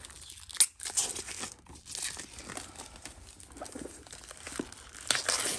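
Clear plastic shrink wrap crinkling and tearing as it is picked open and peeled off a notebook. There is a sharp crackle about half a second in, and the crinkling gets louder near the end.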